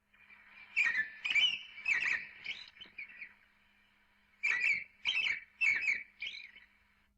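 A songbird singing two short phrases of quick, sharp chirping notes, about five notes in the first and four in the second, with a pause of about a second between them.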